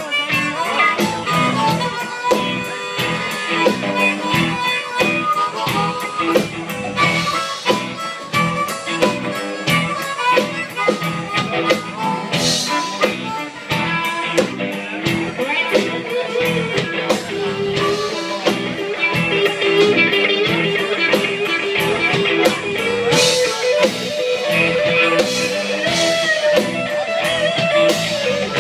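Live blues band playing, electric guitar and a lead line amplified through the stage speakers, with long held melody notes in the second half.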